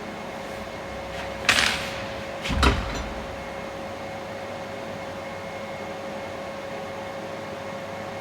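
Steady electrical machine hum in a workshop. It is broken about one and a half seconds in by a short hiss and, about a second later, by a dull knock.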